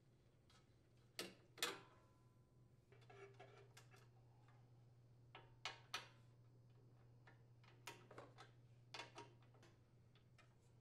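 Faint, sparse metallic clicks and taps from a 10 mm socket and ratchet working the bolts off a snowblower engine's plastic muffler cover, coming in ones and pairs over a faint steady hum.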